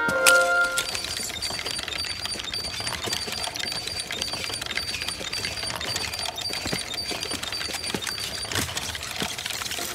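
A small toy tricycle rolling over a tiled floor: a steady, rapid mechanical rattling of small ticks, with a short high squeak repeating at even spacing.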